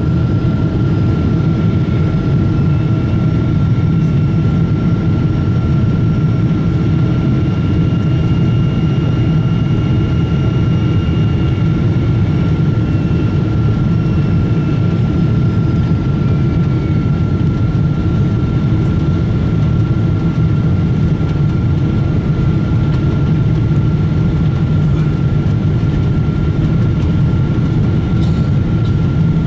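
Steady cabin noise of a Boeing 777-200ER in flight on approach, heard from inside the cabin: a deep, even rush of jet engines and airflow, with a constant thin whine above it.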